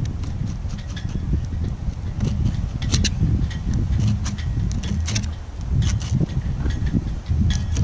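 Wind buffeting the microphone with a low, fluctuating rumble, over many short scraping clicks from a fillet knife cutting through a flounder on a cleaning table.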